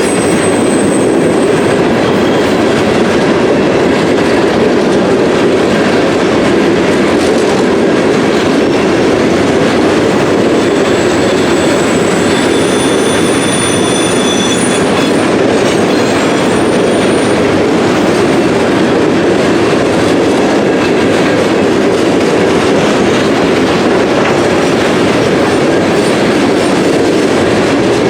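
Freight train cars rolling past on the rails with a steady, loud rumble of wheels on track. Thin high wheel squeals come at the very start and again for a few seconds around the middle.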